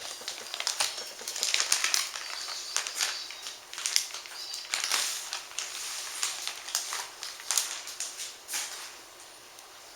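Packaging rustling and crinkling as a replacement laptop LCD screen is unwrapped from its envelope, with a run of irregular crackles and sharp clicks.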